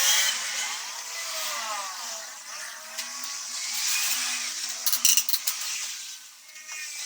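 A small motor-driven machine whirring, its pitch sliding up and down as the speed changes, with a short burst of clattering clicks about five seconds in.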